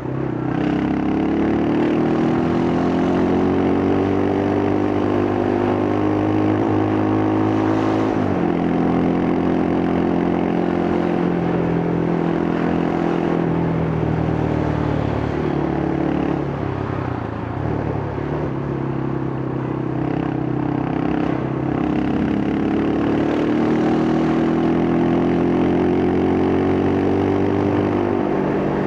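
Yamaha Scorpio's single-cylinder four-stroke engine and exhaust under way. Revs climb over the first couple of seconds, drop suddenly about eight seconds in, sag around the middle, and climb again through the second half.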